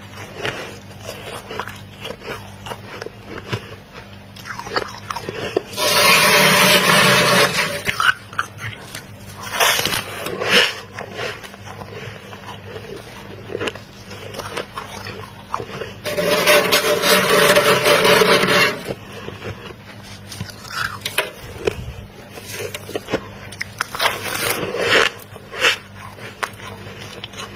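Thick freezer frost being scraped with a spoon twice, each loud scrape lasting about two seconds, with crunchy biting and chewing of the icy frost in between.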